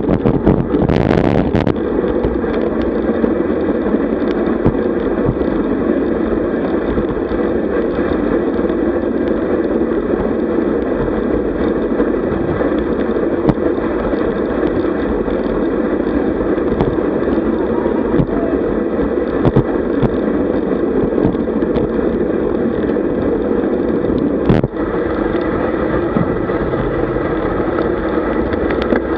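Steady rush of wind on a bike-mounted microphone with tyre and road noise from road bicycles riding in a group at about 45 km/h. A single short knock comes near the end.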